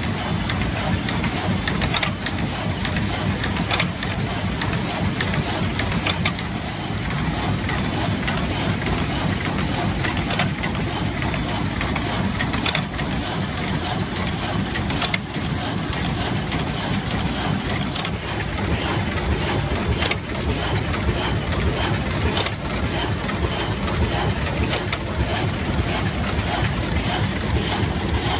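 1979 Bobst SP102E automatic platen die cutter running steadily while feeding and cutting carton stock: a continuous mechanical din with sharp clicks recurring every two to three seconds.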